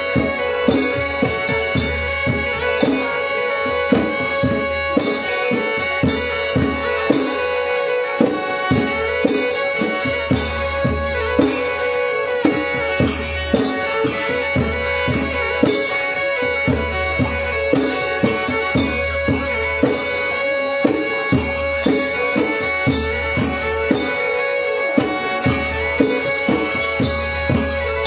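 Traditional mamuad ritual music: hand drums beating a steady, even rhythm of just under two strokes a second over a drone held at one pitch.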